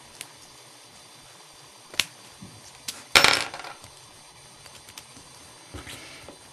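Small metal clicks from lock picking tools working in a Master Lock TSA 007 four-pin padlock. A few sharp separate ticks come first, then a louder metallic rattle about three seconds in.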